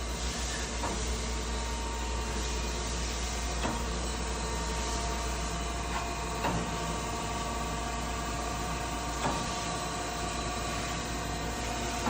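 Chevalier FSG-3A1224 automatic surface grinder running: a steady machine hum with a light knock about every three seconds.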